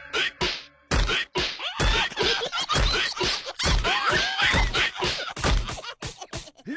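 Cartoon slapstick soundtrack: a rapid, busy run of thuds and whacks mixed with short squeaky, gliding character vocal sounds, starting about a second in after a brief lull.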